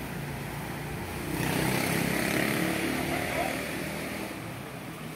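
An engine passes close by, swelling about a second in and fading away after about four seconds, over a steady background of distant voices.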